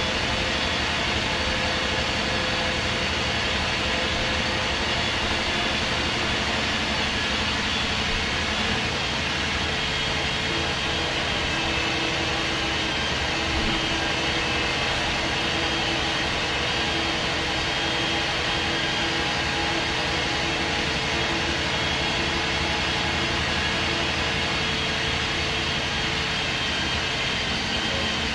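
MAN SD202 double-decker bus heard from on board, its MAN D2566 MUH six-cylinder diesel engine and Voith Diwa 851 automatic gearbox running steadily. A droning tone joins in from about a third of the way through until near the end.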